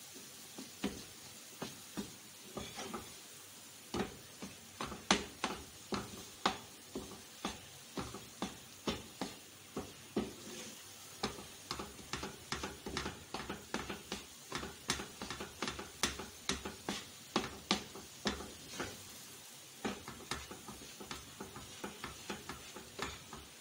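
Wooden spatula knocking and scraping against a non-stick frying pan as a thick barfi mixture of milk powder, milk and ghee is stirred and pressed. The knocks are irregular, about two or three a second, over a steady sizzle. The mixture is cooked down to a stiff mass that has come away from the pan, nearly done.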